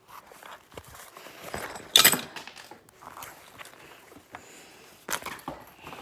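Handling noise right at the microphone as hands fumble with a plastic zip tie: irregular rustling, scraping and knocks, loudest in a scrape about two seconds in and another just after five seconds.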